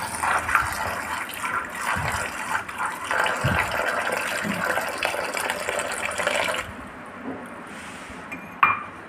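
Water pouring in a thin stream from a water purifier's plastic tap into a steel bowl of soaked chickpeas, splashing as a hand swishes the chickpeas to rinse them. The flow stops about two-thirds of the way through, and a short clink follows near the end.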